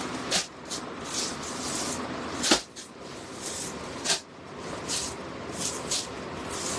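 Rustling and swishing of clothes being handled and unfolded, a run of short scuffs with a sharper swish about two and a half seconds in.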